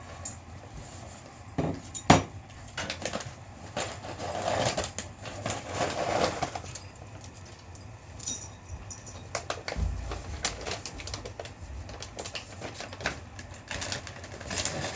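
A small dog eating dry food from its bowl: irregular clicks and clinks of kibble and bowl, with a sharp knock about two seconds in.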